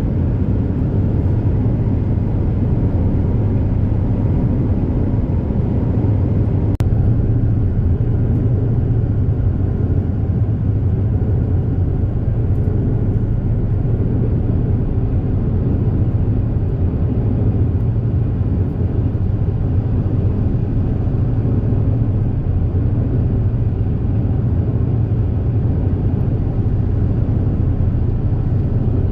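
Steady low engine drone and hull rumble of the high-speed passenger ferry Super Jet "Zuiko" running at speed, heard on board. A single faint click comes about seven seconds in.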